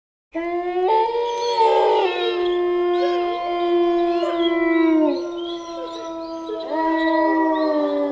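Wolves howling in chorus: several long, overlapping howls at different pitches, some gliding up and down. The howls start abruptly about a third of a second in.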